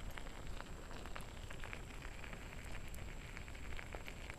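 Scooter tyres rolling over a gravel road: a steady rumbling hiss with scattered crackles of loose stones.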